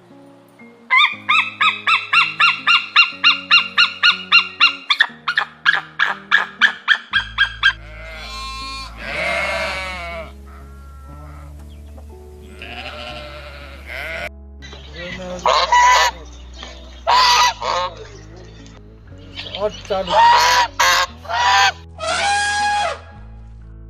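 Geese honking: a fast run of repeated calls, about four a second, for the first several seconds, then separate loud honks at intervals, over faint background music.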